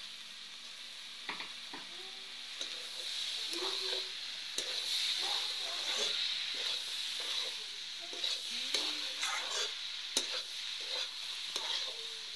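Potatoes and green peas sizzling in a steel kadhai while a long metal spatula stirs them, with frequent sharp clicks and scrapes of the spatula against the pan.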